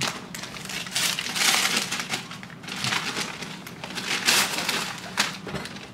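Brown wrapping paper crumpling and rustling as a parcel is unwrapped by hand, in irregular bouts that are loudest about a second and a half in and again past four seconds.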